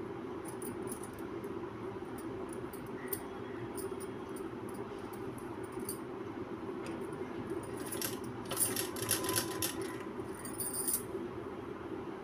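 Light rustling and scattered clinking as net fabric is pleated by hand at a sewing machine, with a steady low hum underneath; the clinking thickens into a brief jingle about eight and a half seconds in and again near the end.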